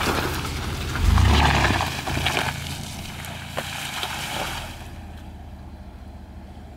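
A Ford Expedition's twin-turbo V6 revs up about a second in, its tyres churning through wet mud and puddles. It then settles to a quieter, steady low engine hum as the SUV crawls.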